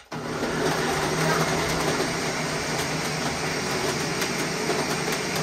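Countertop blender switched on: it starts abruptly and runs steadily and loudly, blending frozen fruit, yogurt and milk into a smoothie.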